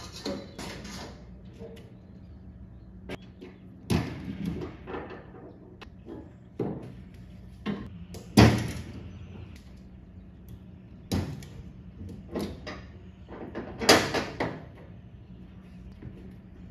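Scattered metal clanks and knocks from a flatbed utility trailer as its rear ramp gate is let down and things are handled on the deck: about a dozen separate knocks, the loudest about halfway through and another loud cluster late on.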